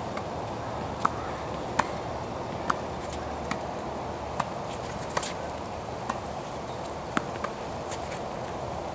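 Tennis balls hit back and forth between rackets and bouncing on a hard court during a volley rally: sharp pocks roughly once a second, a few in quick pairs, over steady background noise.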